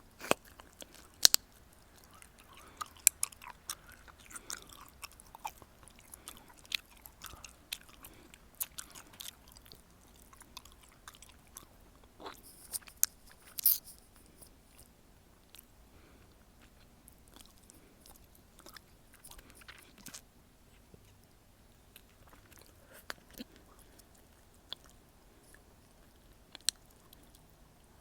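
Gum being chewed close to the microphone: wet smacks and sharp clicks, frequent over the first half and sparser in the second.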